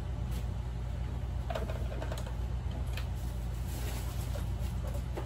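Light, irregular clicks and taps of plastic toy kitchen pieces being handled, over a steady low hum.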